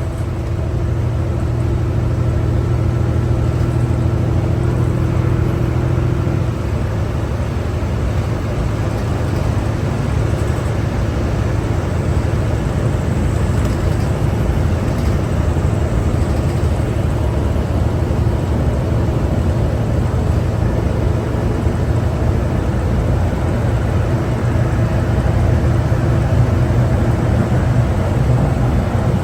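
Cummins ISL9 diesel engine and drivetrain of a 2011 New Flyer D60LFR articulated bus running steadily under way, a continuous low rumble with road noise heard from inside the bus. A steady engine note drops away about six seconds in.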